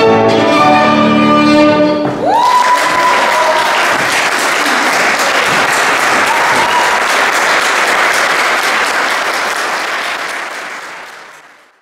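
Violin and piano play the last notes of a classical piece, stopping about two seconds in; then an audience applauds, and the clapping fades out near the end.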